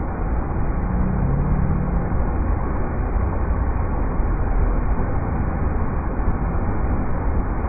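Steady rushing of river rapids: a dense, even water noise, heaviest in the low end.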